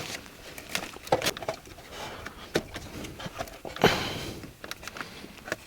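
Irregular small clicks, taps and rustles of hands working among a scooter's wiring and plastic panels, the loudest a short scrape about four seconds in.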